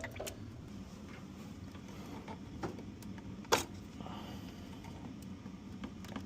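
Ice machine parts and hoses being handled, with scattered small clicks and knocks and one sharper knock about three and a half seconds in, over a steady low hum.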